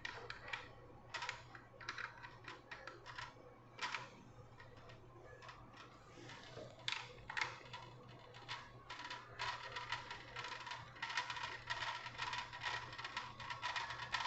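Quiet, irregular run of plastic clicks and rattles from a ring light's stand and phone holder being handled and adjusted. The clicks come faster and closer together in the second half.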